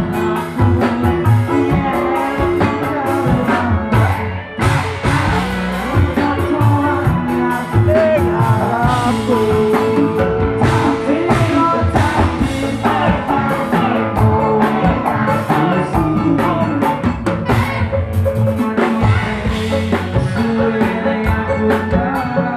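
Live band playing a song: a male singer sings into a microphone over a drum kit and electric guitars.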